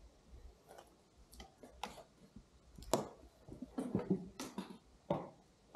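Footsteps over loose rock and broken timber debris: irregular crunches and knocks, the loudest about three seconds in, with a quicker run of steps after it.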